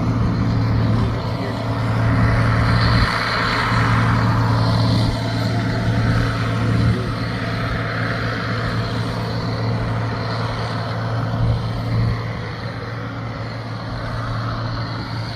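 A heavy engine runs steadily with a low drone. A rushing noise swells a couple of seconds in and then eases off.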